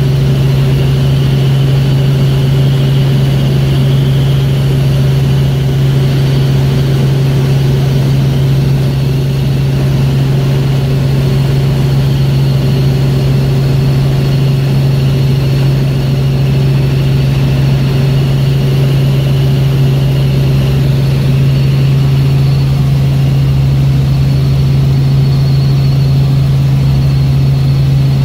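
Helicopter in flight heard from inside the cabin: a loud, steady drone with a strong low hum and a faint high whine above it.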